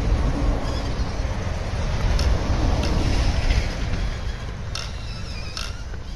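Wind rumbling on the microphone, with a faint whine from the FTX Ravine RC crawler's electric motor as it drives off along the dirt path. A few light clicks about two seconds in and near the end.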